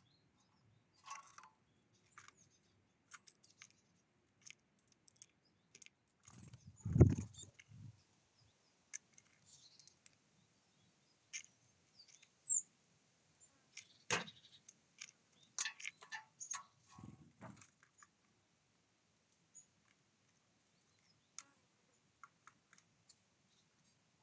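Birds at a feeder: scattered short taps and clicks of pecking at seed, with a loud thump about seven seconds in and one brief high chirp.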